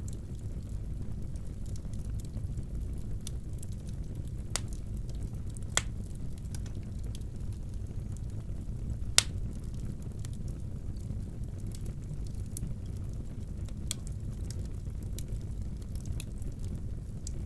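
Wood fire burning in a fireplace: a steady low rumble with scattered sharp crackles and pops, the loudest pop about nine seconds in.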